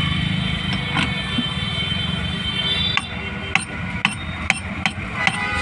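A steady background din, then, about halfway through, six sharp hammer taps roughly half a second apart, struck while working on a marble cutter being repaired.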